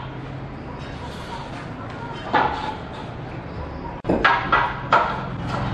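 Sharp knocks and clatters of metal straightedge bars and bricks set down on a concrete floor: one knock in the middle, then three or four in quick succession near the end, each with a short metallic ring. A steady low hum runs underneath.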